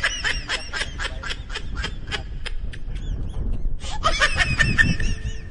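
A person laughing in quick, repeated bursts that trail off, then a second burst of laughter about four seconds in.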